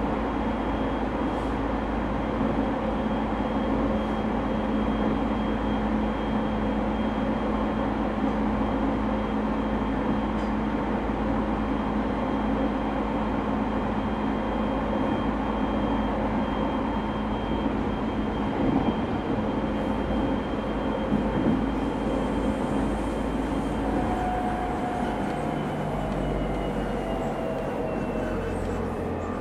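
Running sound heard from inside a JR East 209 series 0 EMU motor car with its original, un-renewed traction equipment, the train moving at speed along the line. A steady rumble of wheels on rail carries a steady motor and gear hum. About 24 seconds in, the tones begin to fall in pitch as the train slows.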